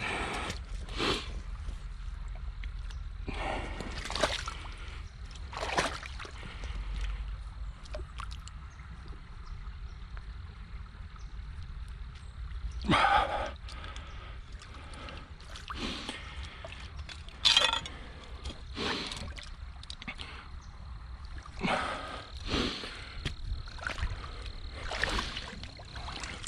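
Water splashing and sloshing in irregular bursts, about a dozen times, as a steel drowning rod is worked and pulled out of flooded mud, with a person's strained breathing from the effort.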